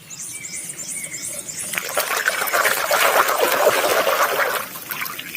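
Water splashing and running over a muddy toy as it is washed clean. The rush builds about a second and a half in and eases off near the end.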